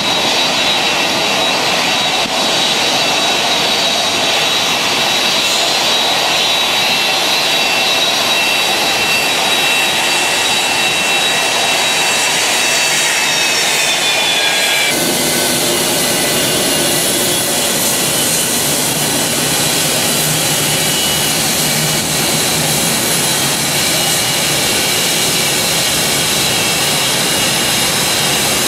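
Rear-mounted Pratt & Whitney JT8D turbofans of a McDonnell Douglas DC-9-family jet running at taxi power: a loud, steady whine over a jet rush. The whine glides down in pitch about halfway through, then changes abruptly to a steadier whine with more low rumble.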